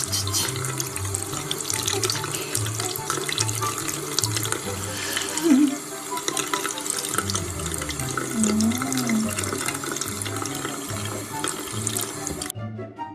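Steady running water, like a tap flowing, over background music with a stepping bass line; the water cuts off suddenly near the end, leaving only the music.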